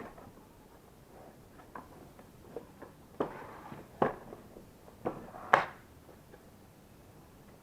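Light clicks and knocks of plastic vacuum-cleaner parts being handled during disassembly, with four louder knocks in the second half.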